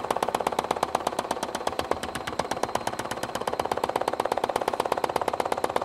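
Baileigh MH-19 reciprocating power hammer striking rapidly and steadily, about ten blows a second, as the edge of a sheet-metal bowl is fed under its die to trim it off along a drawn line.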